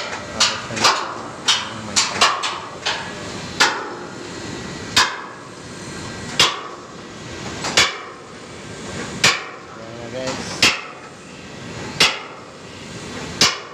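Hammer blows on steel, knocking the mast connection pins home on a tower crane's climbing frame. A quick run of strikes comes first, then eight single blows about every second and a half.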